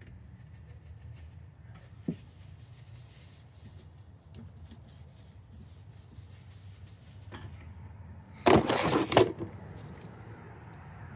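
A low steady hum with a few light clicks, and about eight and a half seconds in a loud rubbing noise lasting under a second.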